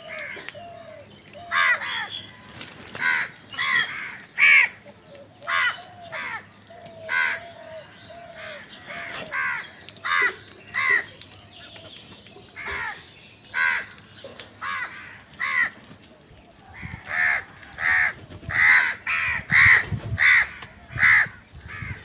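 A flock of house crows cawing, short harsh caws that follow one another every second or so from several birds, with a quicker run of caws near the end. Softer, lower calls sit under them in the first few seconds.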